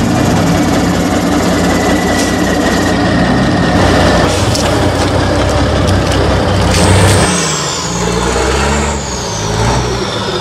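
Diesel engine of an off-road trial truck running under load as it crawls through deep mud, its pitch shifting about seven seconds in. A thin high whine falls slowly in pitch over the last few seconds.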